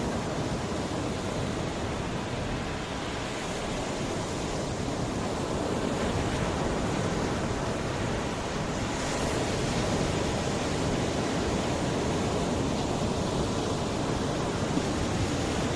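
Mediterranean sea waves washing onto the shore in a steady hiss, swelling and easing slowly, with some wind on the microphone.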